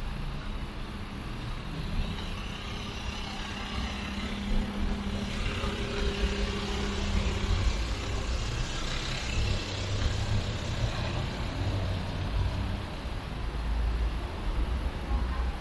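City street traffic: motor vehicles running and passing on the road alongside, a steady low rumble. An engine's steady hum fades out about halfway through, and the rumble swells a little as vehicles pass later on.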